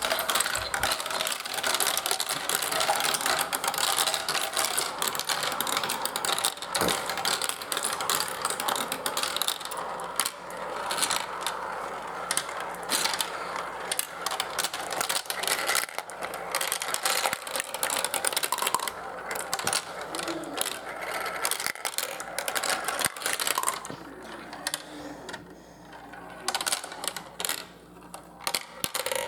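Marbles rolling and clattering through a toy marble run: a dense, steady rattle of clicks that thins out and gets quieter over the last few seconds.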